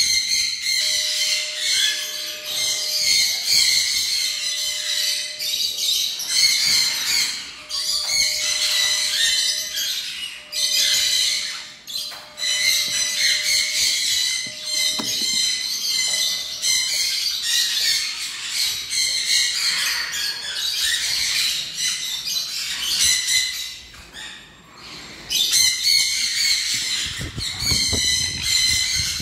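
A flock of conures screeching almost without pause: harsh, high, repeated calls.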